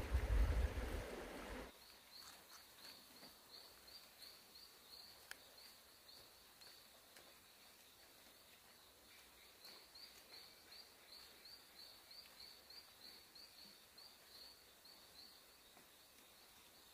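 A loud low rumble that cuts off abruptly about a second and a half in, then an animal chirping: short high chirps, about three a second, in two long runs with a pause between.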